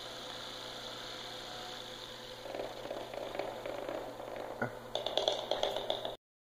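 3lb melty-brain combat robot spinning in place on the floor with a steady whir, running on by itself without responding to the transmitter. From about halfway it turns rougher and uneven, with a click and then a run of rattly ticks near the end before the sound cuts off suddenly.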